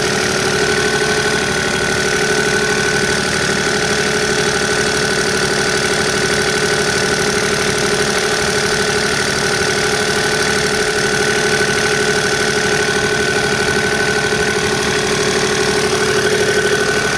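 Kubota KX61-2 mini excavator's diesel engine running steadily, with a steady whine over the engine note; the owner says it runs good.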